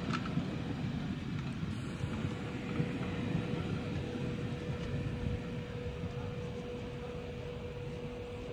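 Matterhorn-Gotthard-Bahn passenger coaches rolling slowly past, a low rumble of wheels on rails that eases as the last coach goes by. A steady hum joins in about two to three seconds in.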